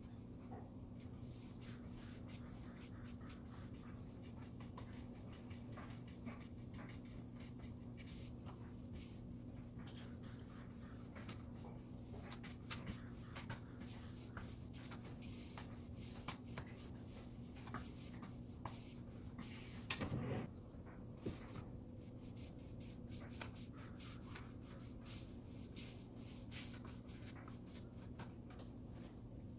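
Paintbrush being stroked over a wooden drawer front, a faint scratchy rubbing of bristles with many small ticks and taps, over a steady low hum. A louder knock comes about two-thirds of the way through.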